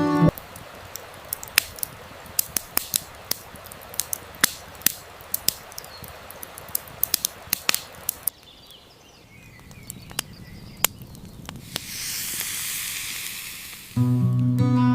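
Campfire crackling, with many sharp, irregular pops over a faint hiss for about eight seconds. It then drops to a quieter low rumble with a few pops, followed by a high hissing rush lasting about two seconds, and music comes in near the end.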